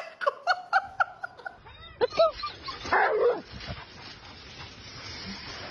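Small dog yipping and whimpering in quick, short, high calls, about four a second, for the first second and a half. Then come two louder cries, around two and three seconds in, followed by a steady outdoor hiss.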